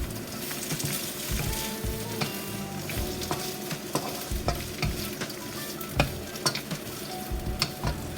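Frozen green beans and onion sizzling in olive oil in a wok while being stir-fried with a wooden spoon, with a steady sizzle and frequent short knocks of the spoon against the pan.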